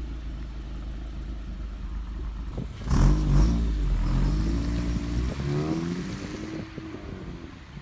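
Honda Civic Si's 2.4-litre four-cylinder engine, breathing through a Skunk2 aftermarket downpipe into the stock exhaust, running steadily. About three seconds in it suddenly gets louder under throttle, the engine pitch climbing as it revs, then it eases off near the end.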